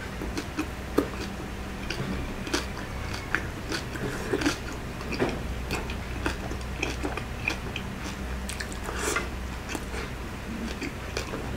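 A person chewing and biting crispy fried pork belly (lechon kawali) and rice eaten by hand, close to the microphone, with irregular crunches and mouth clicks over a steady low hum.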